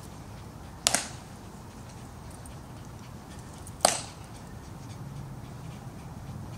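Two sharp clacks about three seconds apart, each with a short ring after it, over a steady low hum.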